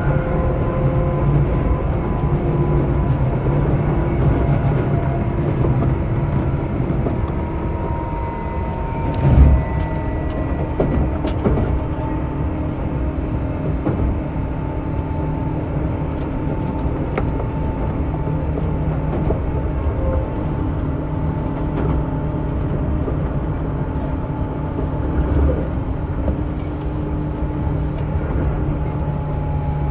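Onboard running sound of a Tobu 9000-series train with AFE chopper control: steady wheel and rail rumble with several motor tones gliding slowly lower, and one heavy thump about nine seconds in.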